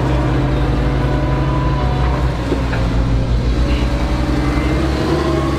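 Diesel engine of a Manitou compact telehandler running steadily as the machine is driven slowly, its note shifting slightly a couple of times.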